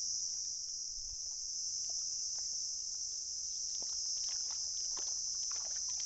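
Steady, high-pitched insect chorus. From about halfway through, a run of short wet splats and clicks as bare feet tread across soft mud while the wet cast net is carried.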